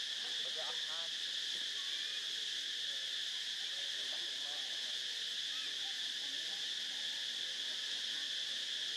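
Steady, shrill drone of an insect chorus, an unbroken high buzzing that holds the same pitch and level throughout.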